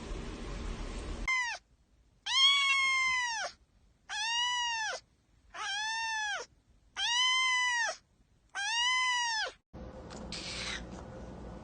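A cat meowing: a short meow, then five long drawn-out meows about one every second and a half, each rising and then falling in pitch.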